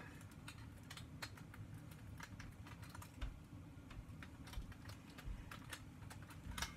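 LEGO Technic parts clicking and tapping as they are handled and pressed into a model truck's chassis: a faint, irregular scatter of small plastic clicks.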